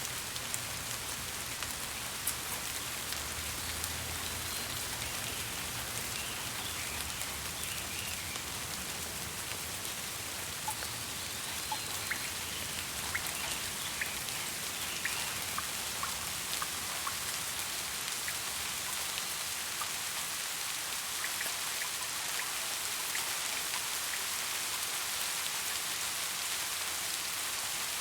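Steady rain falling, an even hiss with scattered sharper drop ticks on a hard surface.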